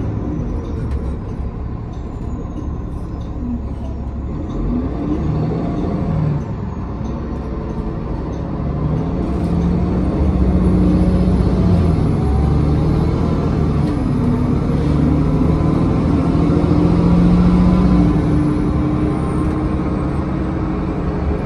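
City bus heard from inside its passenger cabin while driving, a steady engine and drivetrain hum over road noise. The pitch rises and falls with the gears, and it gets louder and higher in the second half as the bus speeds up.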